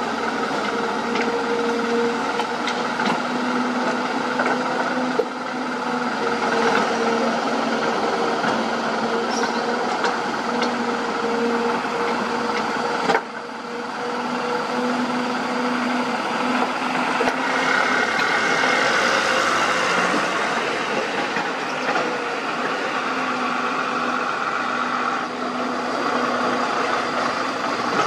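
Hyundai 220 crawler excavator's diesel engine running under load as it digs and swings, with a low hum that comes and goes, plus the noise of loose earth being dumped into a steel dump-truck bed.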